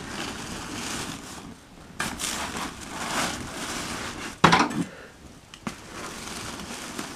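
Metal spade scraping and knocking against a steel burn drum as burning cardboard is pushed back into it, with one sharp clank about four and a half seconds in.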